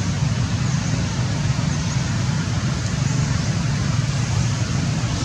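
Steady outdoor background noise: an even low rumble under a constant hiss, with no distinct events.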